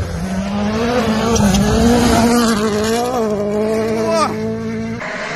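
Rally car engine running hard at high revs as the car passes on a gravel stage, its pitch rising and falling with the throttle and gear changes. About four seconds in the pitch falls sharply, and near the end the sound cuts off suddenly.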